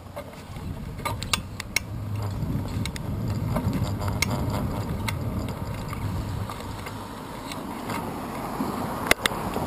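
Bicycle rolling over asphalt, picked up by a handlebar-mounted camera: a low rumble of tyres and wind that swells after about two seconds, with scattered clicks and rattles from the bike and mount, and two sharp clicks near the end.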